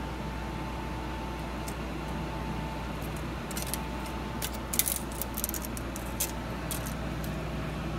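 Metal tape measure rattling and clicking in the hand: light metallic clicks come in a loose cluster from about three and a half to seven seconds in, the sharpest near five seconds. A steady low hum with a faint whine runs underneath.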